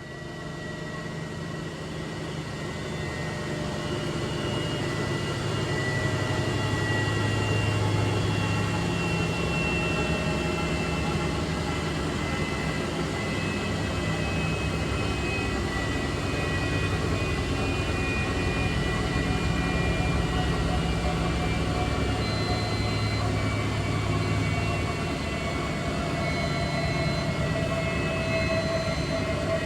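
Large coin-operated washing machine in its spin cycle: a steady low drum-and-motor hum with a faint motor whine above it, building up over the first few seconds and then holding at speed.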